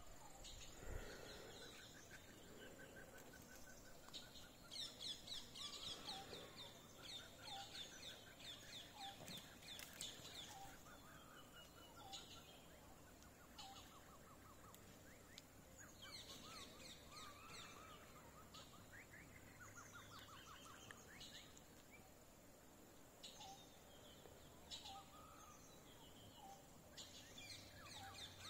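Faint wild birds calling, with several rapid trills and short chirps repeating throughout, over a steady thin high-pitched tone.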